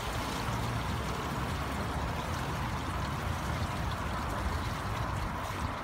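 Splashing from a child swimming front crawl across a pool, over a steady rushing noise.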